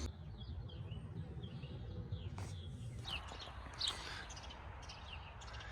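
Small birds chirping faintly, a scatter of short high chirps, with a single sharp click about two and a half seconds in.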